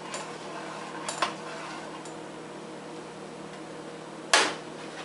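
Metal spoon stirring pasta in a stainless steel pot: a few light clinks against the pot in the first two seconds, then a louder clank about four seconds in as the spoon strikes the pot.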